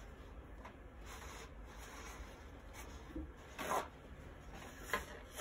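Faint rubbing and scraping of materials being handled, with one louder brief scrape about two-thirds of the way through, over a low steady hum.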